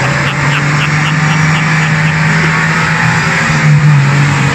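Suzuki Grand Vitara V6 engine held at high revs under heavy load as the 4x4 ploughs through deep mud, a steady engine note with a brief extra rev about three and a half seconds in.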